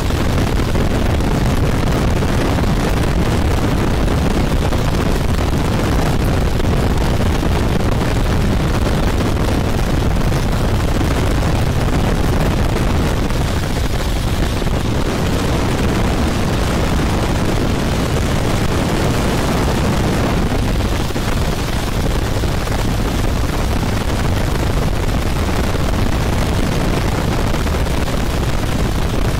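Open-cockpit biplane in flight: the engine and propeller running steadily under loud wind rushing over the microphone in the slipstream.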